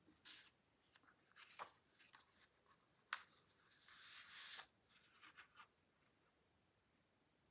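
Faint paper handling: a cut-out paper shape rustling and being pressed and rubbed flat onto a sketchbook page, with a sharp tap about three seconds in and a longer rub of hands over paper around the fourth second.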